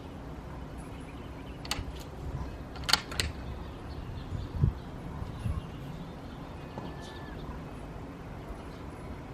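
A few sharp clicks and two duller knocks from tripod gear being handled and moved, over a steady low outdoor background.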